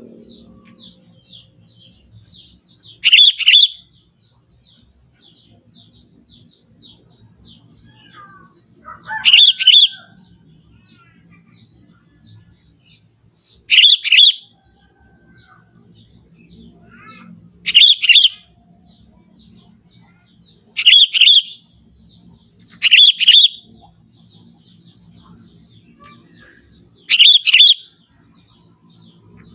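Sooty-headed bulbul singing: seven short, loud phrases, one every three to six seconds. Between them are faint high chirps and a low background murmur.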